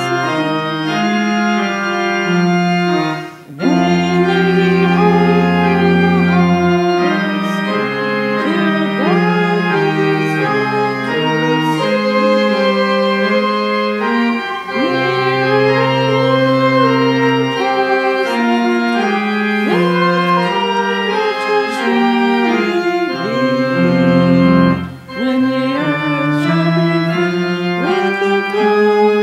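Church pipe organ playing slow, sustained chords over a low pedal line, with two short breaks between phrases.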